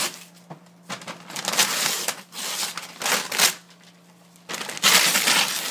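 Gift wrapping paper being torn and crumpled off a large cardboard box, in three loud ripping bursts.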